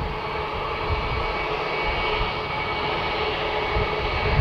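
Airliner jet engines running at taxi power: a steady whine over a constant noisy rush with an uneven low rumble.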